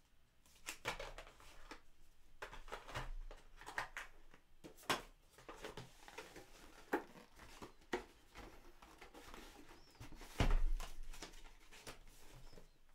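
Tarot cards being handled and packed away: scattered papery rustles and soft clicks of the card stock, with one duller thump about ten and a half seconds in as a boxed deck is set down or picked up from the table.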